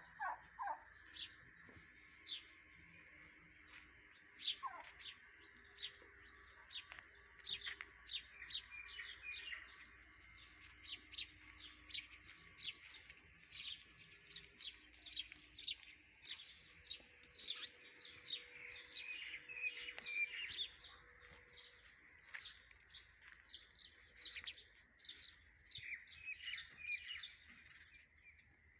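Many birds chirping, a dense run of short, high, sharp chirps overlapping one another throughout.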